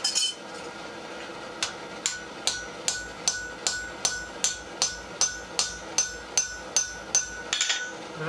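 Hand hammer striking a punch held on hot steel on an anvil, punching a hole: one blow at the start, then a steady run of about fifteen blows, roughly two and a half a second, each with a short metallic ring.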